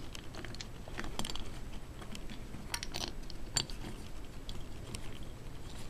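Small, irregular clicks and taps of metal mounting screws against the diaphragm fuel pump's cover on a carburetor, as they are fitted by hand and started in their holes.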